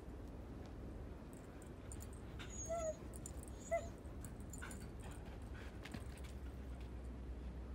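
Siberian husky puppy giving two short, high-pitched whimpers about a second apart.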